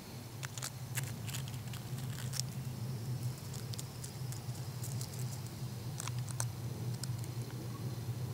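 A hooded crow pecking at and stepping on crusty snow: scattered light crunching ticks, in clusters from about half a second in and again around six seconds, over a steady low hum.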